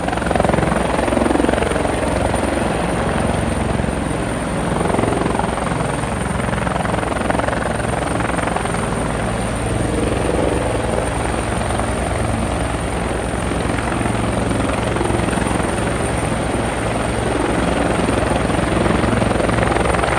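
Steady helicopter rotor sound: a continuous whirring with a fast, even rhythmic chop that holds level throughout.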